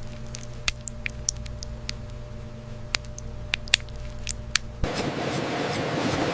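A steady low machine hum with scattered small sharp clicks and ticks. Just before five seconds in, it cuts abruptly to a steady, dense rushing hiss.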